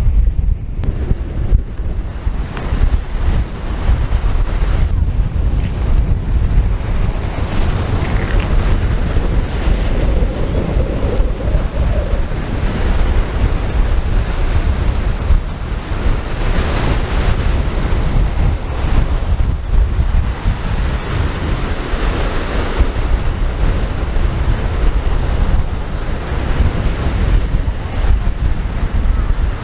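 Wind buffeting the microphone with a steady, loud, low rumble, over surf breaking on a sandy beach.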